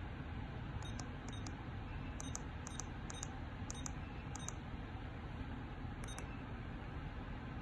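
Keypad beeps of a VeriFone VX520 card payment terminal as an amount is keyed in: about eight short, high beeps at uneven intervals, one per key press. A steady low background hum runs under them.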